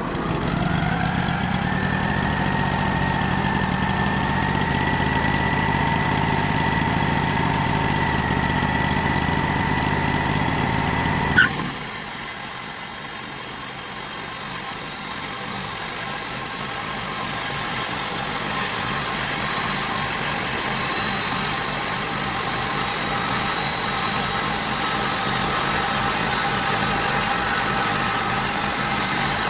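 Bandsaw sawmill running steadily, its engine joined by a whine that climbs over the first two seconds and then holds. About a third of the way in, the sound cuts off abruptly with a click and gives way to a hissier, higher-pitched steady noise with a faint whine.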